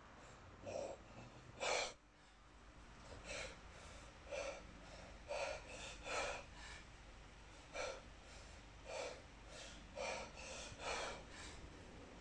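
A kettlebell lifter breathing during snatches: short, sharp breaths in and out, about one a second, some coming in quick pairs, paced with the swings of the bell.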